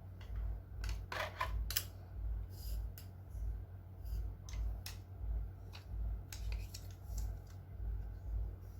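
Scattered light plastic clicks and rattles from an extendable camera handle that folds out as a tripod, handled while its sections are adjusted, with a quick cluster about a second in. Under them runs a steady low hum with a soft low pulse about twice a second.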